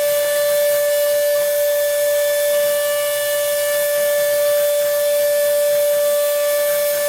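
Spindle of a homemade CNC router running at a steady speed while milling a printed circuit board: a constant high whine over a steady hiss.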